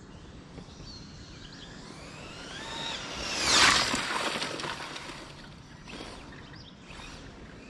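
Radio-controlled drag car making a run past the camera: its motor whine climbs in pitch as it accelerates and closes in, peaks sharply in a loud rush about three and a half seconds in, then falls away quickly.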